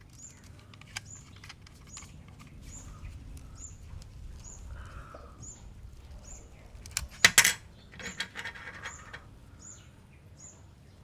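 Small clicks and clatter of a vintage film camera and its detached hot shoe being handled, with a loud sharp clack about seven seconds in. Behind it, a bird gives short high chirps, about two a second.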